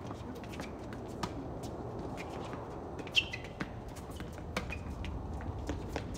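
Doubles tennis rally on a hard court: several sharp hits of racket on ball, with a few short high squeaks of sneakers on the court surface. The loudest is a hard hit with a squeak about three seconds in.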